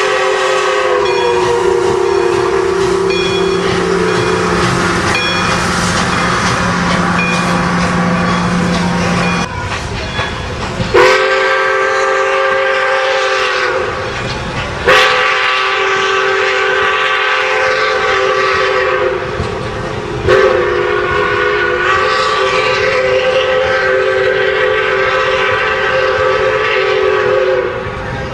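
Steam whistle of Pere Marquette 1225, a 2-8-4 Berkshire steam locomotive, blowing four long chime blasts, the first dropping in pitch as the engine goes by. Between and under the blasts the passenger cars roll past with a clickety-clack.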